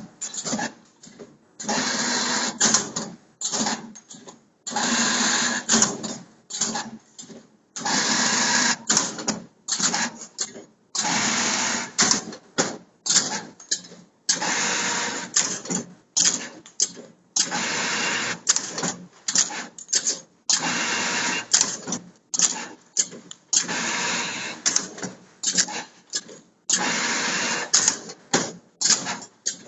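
Prototype wire-forming machine making spring-wire rods with a loop at each end, running through repeated work cycles about every three seconds. Each cycle is a noisy run of about a second followed by a quick series of clicks and clacks.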